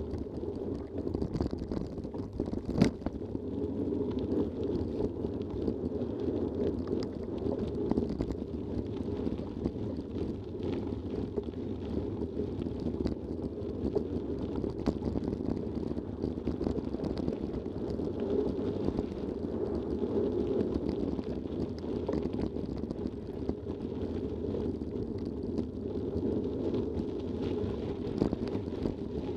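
A mountain bike rolling over dirt and gravel trail, with a steady rumble from the tyres and the shaking bike. There is one sharp knock about three seconds in.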